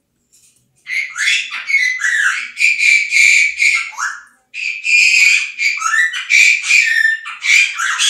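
Amazon parrot squawking: a fast run of harsh, raspy calls starting about a second in, with a brief pause near the middle.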